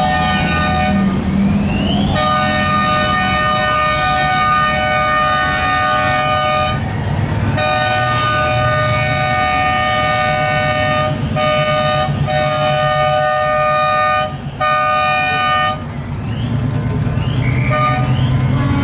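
Car horns held in long, steady blasts that cut out briefly a few times, with a siren wailing up and down over them. Engines rumble low underneath.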